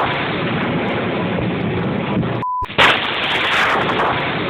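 Thunder from nearby lightning strikes, a loud crackling roll. About two and a half seconds in it breaks off for a moment with a short beep, then a sudden loud thunderclap sets off another roll.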